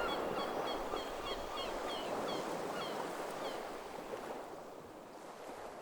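Steady sea-surf ambience with a small bird chirping over it in quick, short falling notes for the first few seconds; the whole sound slowly fades out near the end.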